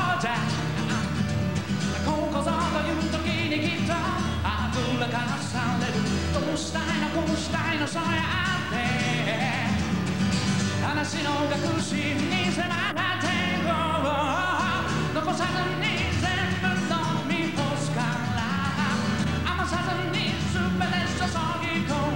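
Live solo performance: a man singing into a microphone to his own acoustic guitar accompaniment.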